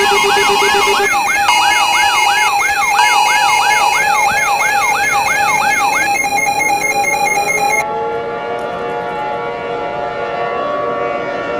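Layered electronic sirens: a fast yelp sweeping up and down about two and a half times a second over steady and pulsing alarm tones. The alarm tones cut off abruptly about eight seconds in. From about six seconds in, a civil defense siren winds up, rising slowly in pitch.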